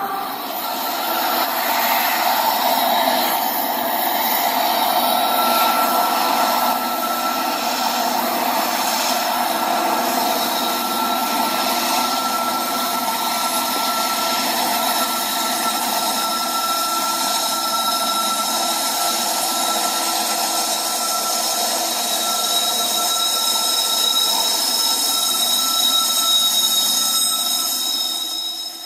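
HO scale model freight train of covered hopper cars rolling past on the track, a steady whirring of small metal wheels on the rails with a thin whine held over it.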